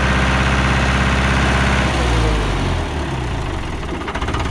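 1958 Fordson Power Major's four-cylinder diesel engine running at full throttle, muffled by an added silencer. About two seconds in, the throttle is let off and the revs fall away to a lower, quieter run.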